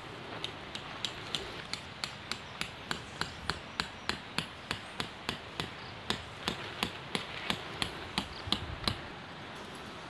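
Steady hammering of a tent stake into the ground: a regular series of sharp knocks, about three a second, that stops about nine seconds in.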